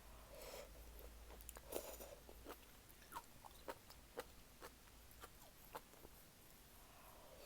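Faint close-up eating sounds of malatang being chewed: soft wet mouth sounds with many small scattered clicks.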